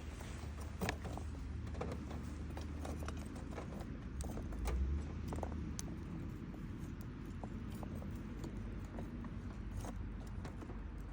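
Irregular hollow wooden knocks and clicks of firewood being handled at a campfire, over a low rumble that is strongest in the first half.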